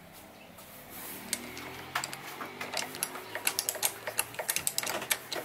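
Rapid, irregular mechanical clicking and ticking over a faint low hum, the clicks growing busier from about two seconds in: the Sieg SX2P mini-mill's controls being worked while setting up the cutter's depth.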